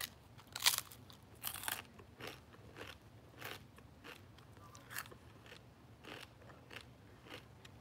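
Someone eating a puffed rice cake close to the microphone: a few loud crunching bites in the first two seconds, then softer, irregular chewing crunches about twice a second.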